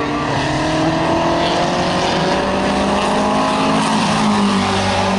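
Formula 5000 race car's Chevrolet V8 accelerating hard, its pitch climbing steadily, then dropping near four seconds in as it shifts up.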